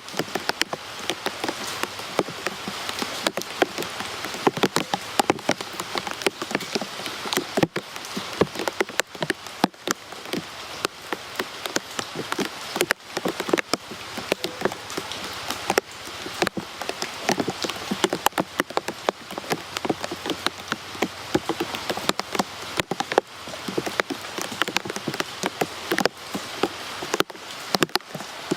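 Rain falling steadily, with many distinct drops striking close by over a constant hiss of rainfall.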